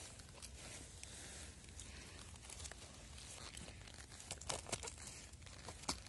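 Faint rustling and crackling of handling close to the microphone, with a few sharper clicks about four and a half seconds in and again near the end.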